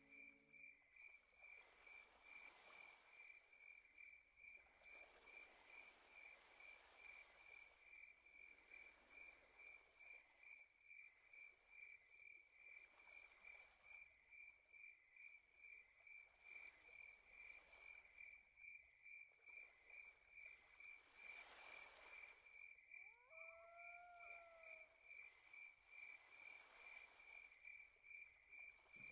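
Faint, steady chirping of crickets: one high note pulsing about three times a second. About three-quarters of the way through, a single lower call rises and then holds briefly.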